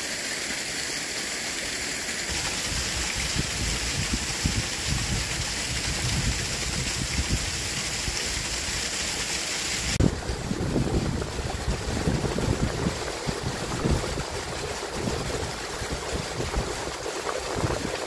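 Water running and rushing into a black water storage tank, now filling fast after a blocked inlet pipe was cleared. About halfway through, the sound changes to a lower, uneven gurgling and splashing of water welling up through the tank's lid and spilling over its rim: the tank is overflowing.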